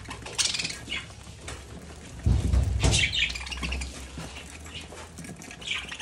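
Budgerigars chirping and pecking at seed. A loud low rumbling thump comes a little over two seconds in and lasts about a second and a half.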